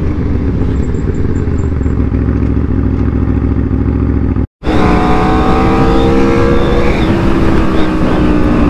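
2014 Aprilia RSV4's V4 engine running loud and steady through a full titanium Pro Race exhaust. The sound drops out completely for a moment about halfway through, then the engine returns with its pitch easing slightly lower.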